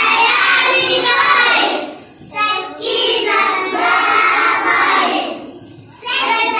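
Young children singing a nursery song together, in sung phrases broken by two short pauses for breath.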